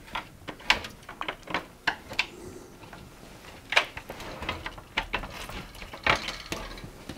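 Irregular light clicks, taps and rustles of cooker wiring being tucked back into the hob frame while the glass-ceramic hob top is handled, with two louder clicks about four and six seconds in.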